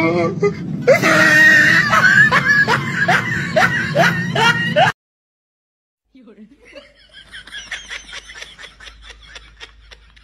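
A person laughing hard in short repeated bursts, about three a second, which cut off suddenly about five seconds in. After a second of silence, fainter quick voiced bursts follow.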